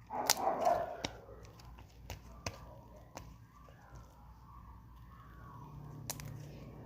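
A dog barking once in the first second, followed by faint scattered clicks and small handling noises.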